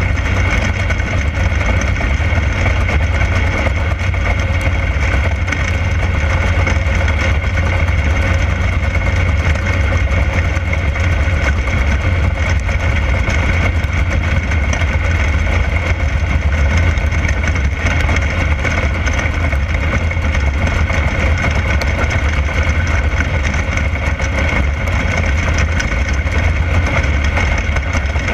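360 sprint car's V8 engine running under racing load, heard from inside the cockpit. It is a loud, steady drone with a heavy deep rumble.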